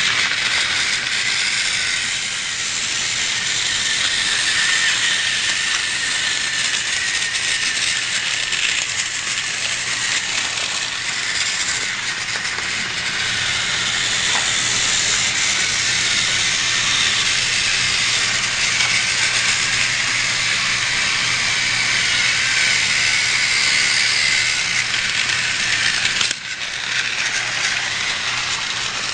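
Battery-powered TrackMaster toy train running on plastic track: a steady whir and rattle of its small motor and gears, with a brief dip about 26 seconds in.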